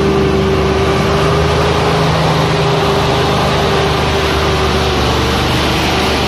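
Mitsubishi tank truck's diesel engine running hard as the truck labours through deep mud, a loud steady drone with a constant engine tone.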